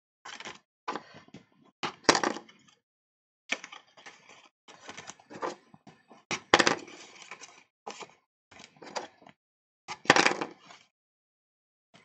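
Paper panels being creased with a bone folder: a string of short scraping and rustling strokes, each well under a second, with silent gaps between them.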